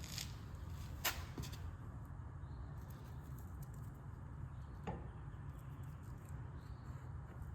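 A few light clicks and knocks from metal parts being handled, a pair about a second in and another about five seconds in, over a steady low hum.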